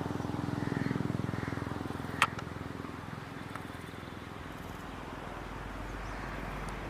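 An engine running with a fast, even pulse that fades away over the first three seconds, then a deep low rumble building up. There is a single sharp click about two seconds in.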